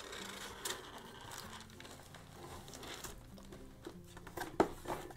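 Soft rustling and crinkling as a cardboard box is handled and its lid lifted open, with a few light taps and one sharp click about four and a half seconds in.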